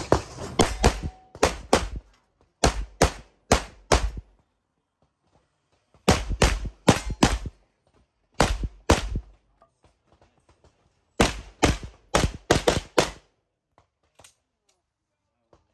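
Handgun shots fired in quick strings, about two or three shots a second, with pauses of one to two seconds between strings, as a shooter works through a practical-shooting stage. The longest string, about six shots, comes about two-thirds of the way in, and only a few faint shots follow.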